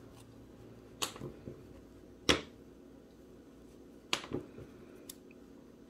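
Handling noise as hands work yarn tails through a crocheted toy: several short, sharp clicks and taps, the loudest a little past two seconds in, over a faint steady hum.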